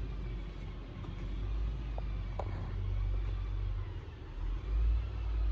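A steady low rumble that swells near the end, with a couple of faint ticks about two seconds in.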